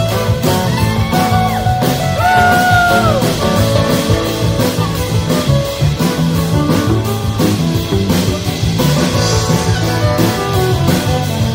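Live band playing an instrumental passage with drum kit and plucked strings. About two seconds in, a lead instrument slides up into long held notes.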